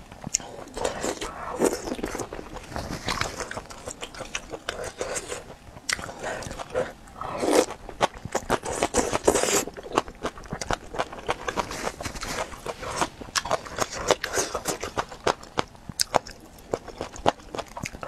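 Close-miked eating of spicy hot-pot food: wet chewing and biting with many quick mouth clicks, louder for a couple of seconds near the middle.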